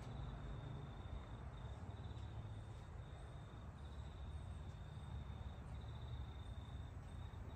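An insect, likely a cricket, trilling steadily at a high pitch, broken by short gaps about every second, over a low rumble.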